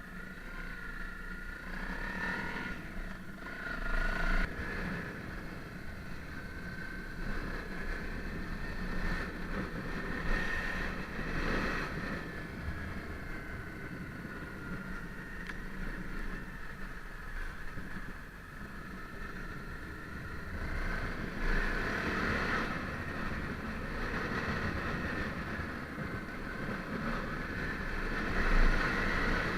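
Honda CRF250L motorcycle's single-cylinder four-stroke engine running while the bike is ridden, with wind noise on the microphone. Its level swells and eases several times.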